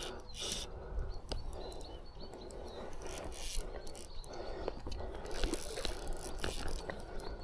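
Fly reel clicking in irregular runs of ratchet ticks as line goes on or off the spool while a large rainbow trout is being played.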